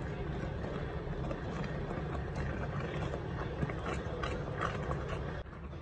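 A spoon stirring thickening custard in a pot on the stove, scraping and knocking against the pan's sides and bottom in irregular strokes, a few a second, over a steady low rumble.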